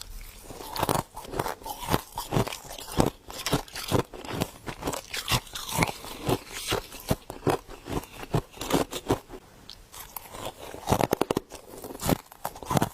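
Close-up crunching and chewing of freezer frost: irregular crisp bites and crackles, with a quick run of rapid crunches about eleven seconds in.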